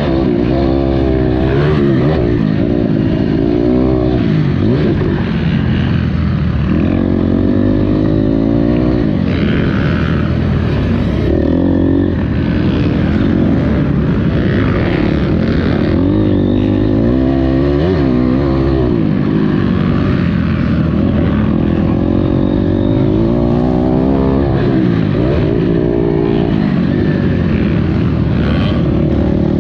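Honda CRF250R motocross bike's four-stroke single-cylinder engine being ridden hard, the revs climbing and dropping off again and again as the throttle is opened and shut.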